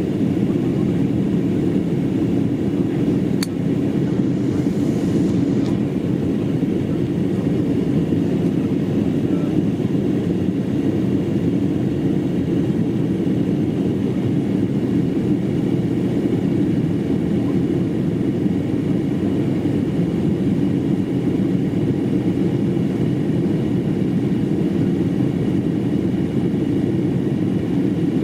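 Steady drone of an Embraer 195 airliner's turbofan engines and airflow, heard inside the passenger cabin. It is an even, low-pitched noise at an unchanging level.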